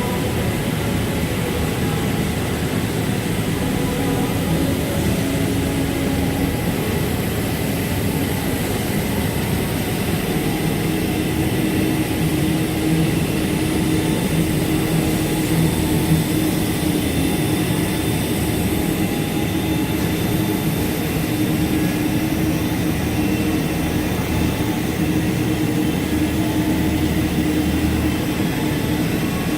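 Automatic computer-controlled fabric cutting machine running: a steady mechanical drone with faint hums that shift slightly in pitch.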